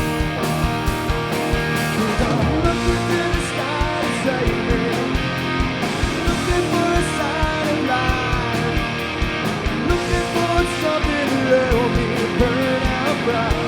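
Rock band playing live: electric guitars, bass and drums with a steady beat, with vocals over them.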